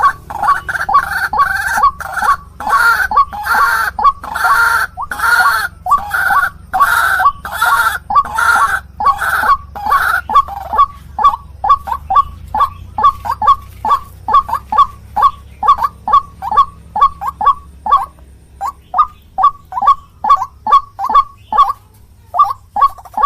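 White-breasted waterhen (ruak-ruak) calling loudly: harsh, repeated croaking calls for about the first ten seconds, then a fast run of short, clipped notes, about three a second, to the end.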